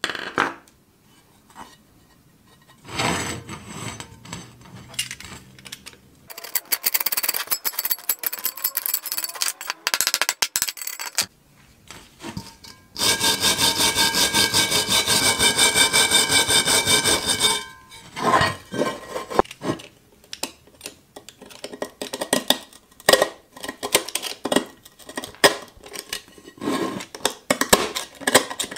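Rust being scrubbed and scraped off a cast iron pan by hand. The loudest part, in the middle, is a brass wire brush scrubbing the pan in rapid, even strokes for several seconds; around it come shorter scrapes, taps and clicks of metal tools on the rusty iron.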